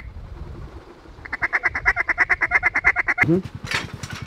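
Duck quacking: a fast, even run of short quacking notes, about ten a second, lasting some two seconds from just over a second in. Near the end come a few sharp knocks.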